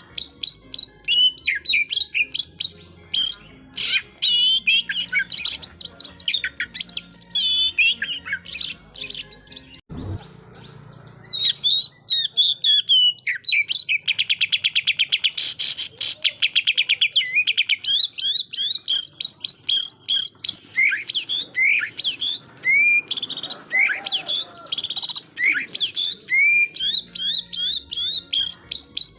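Oriental magpie-robin (kacer) singing a loud, varied song of quick whistles, chatters and rapid-fire "tembakan" phrases. About halfway through comes a fast, even trill lasting a few seconds. There is one knock about ten seconds in, followed by a brief lull in the song.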